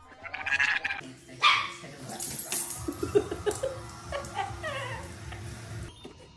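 A dog barking and yipping in short calls, including a few short falling yelps about two-thirds of the way through.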